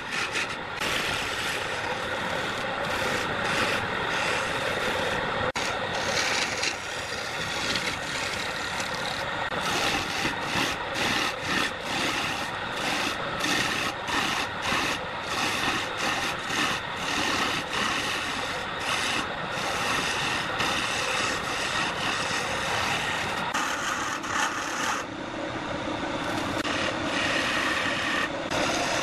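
Wood lathe spinning a vase blank while a hand-held turning chisel cuts into it: a continuous rasping, scraping cut that swells and eases many times as the tool is pressed in and backed off.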